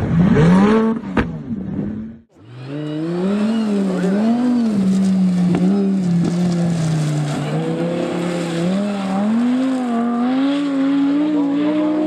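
Sports car engine revving in waves, its pitch rising and falling as the throttle is worked. There is a short rev in the first second and a brief cut-out about two seconds in before the engine note picks up again.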